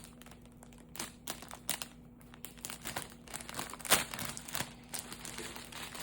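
Plastic packaging crinkling and rustling in irregular crackles as it is pulled open by hand, with the sharpest crackle about four seconds in.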